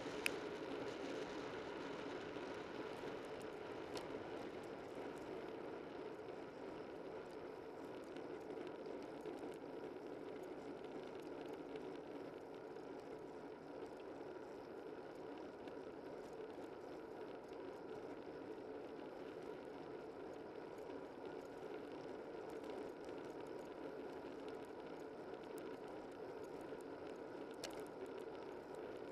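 Bicycle riding on a paved road, heard from a camera on the bike: a steady rushing road noise with scattered light ticks, and one sharp tick just at the start.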